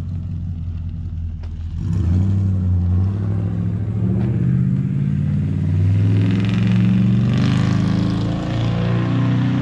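Turbocharged GMC 2500 HD pickup's V8 accelerating away up the road, exhausting through straight-through Total Flow mufflers with the electric cutouts shut. The engine note swells about two seconds in and rises and falls in pitch, with crackling from the exhaust.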